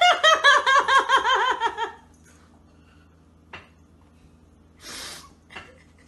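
A person laughing hard in a quick run of high-pitched 'ha-ha' pulses that slide down in pitch over about two seconds, followed by a short breathy snicker and a few light knocks.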